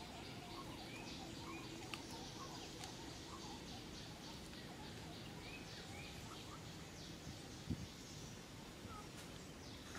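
Faint outdoor ambience: a steady background hiss with scattered short bird chirps and a couple of soft clicks.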